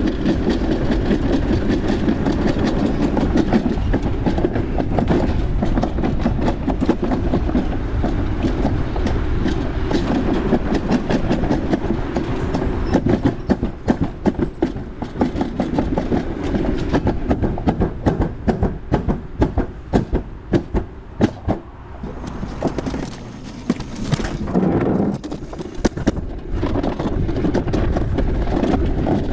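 Summer toboggan run sled rolling along its track: a steady rumble, turning about halfway through into a rapid clatter, with a brief drop in level a little before the end.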